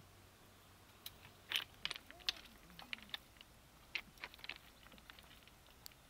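Irregular sharp clicks and crunches, several short clusters between about one and five seconds in, with a few faint short pitched calls among them.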